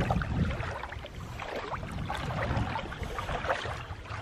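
Shallow water sloshing with scattered small splashes, over a steady low rumble.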